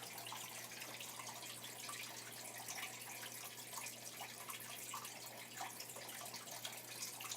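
Faint running, trickling water with a steady low hum underneath.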